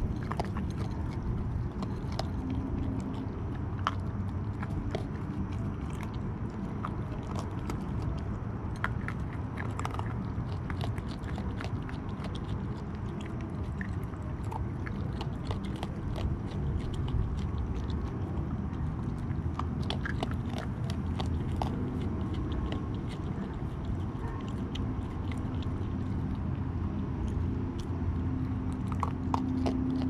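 A raccoon crunching and chewing dry kibble from a metal bowl close by, a steady stream of small irregular clicks and crunches over a steady low hum.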